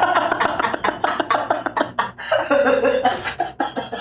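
Men laughing, in rapid repeated bursts.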